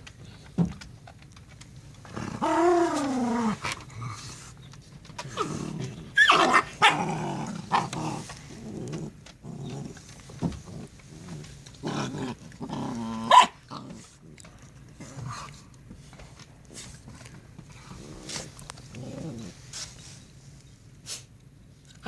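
Jindo dogs play-fighting: an adult Jindo and puppies growling and barking through rough play. One long cry that rises and falls comes about two seconds in, and the loudest sharp yelp comes a little past the middle.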